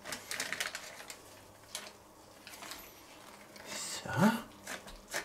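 Baking paper crinkling and rustling as it is lifted and folded over a bacon weave, in a few short bursts, mostly in the first second and again just before a brief spoken word near the end.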